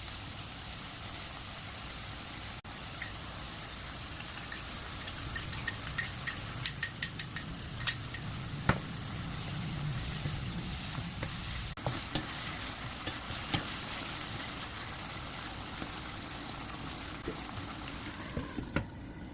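Pork sizzling as it is stir-fried in a pan, with a metal utensil scraping and clinking against the pan. About five to eight seconds in comes a quick run of ringing clinks, and the sizzle dies down near the end.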